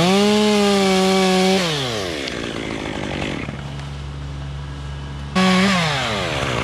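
Stihl top-handle chainsaw cutting through a limb at full throttle, its pitch dipping briefly at the start, then dropping to idle after about a second and a half. Near the end it revs up once briefly and falls back to idle.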